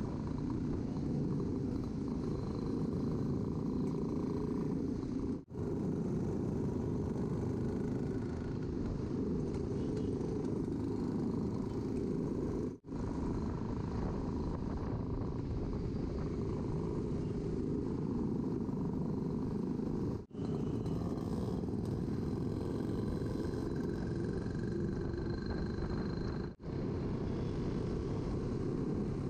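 Motorcycle engine running steadily while riding, with wind and road noise. The sound drops out briefly four times.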